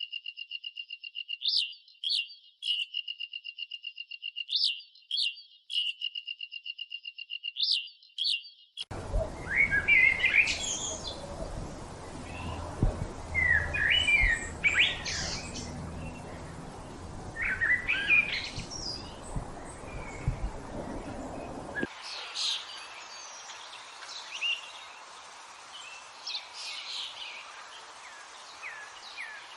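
Birds chirping. First a fast, even trill held at one pitch with sharper chirps mixed in; about nine seconds in it changes abruptly to a mix of varied bird calls over a steady hiss, which grows thinner and lighter at about twenty-two seconds.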